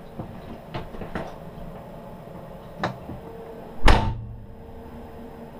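A few light clicks and knocks in a train's driver's cab, then a door shutting with a loud thud about four seconds in. A steady hum sets in just before the thud and carries on.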